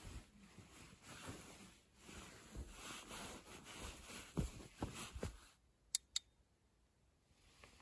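Bedding fabric rustling and shuffling as blankets and a quilt are handled, with soft thumps. After it stops, two sharp clicks about a quarter second apart from a battery camping lantern's switch being pressed.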